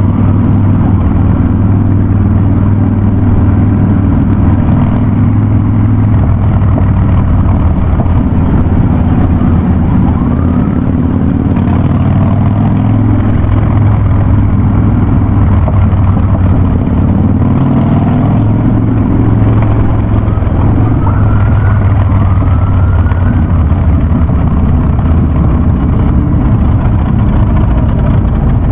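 Harley-Davidson Ultra Classic's V-twin running at a steady, even pace through a Vance & Hines Big Radius exhaust, a loud, deep drone.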